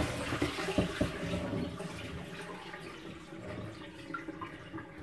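Water splashing and trickling in a kitchen sink as a soaked rabbit is lifted out of its salt-water bath, after a sharp knock at the start. The water sound slowly fades.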